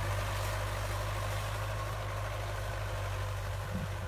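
Belarus 820 tractor's four-cylinder diesel engine running steadily under load while pulling a disc implement through the soil, slowly fading as the tractor moves away.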